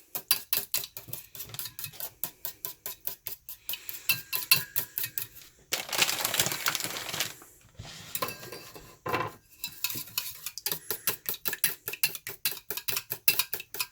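Whisk beating eggs in a bowl, clicking against the bowl's sides in a fast run of about five strokes a second, with a short stretch of rustling noise about six seconds in.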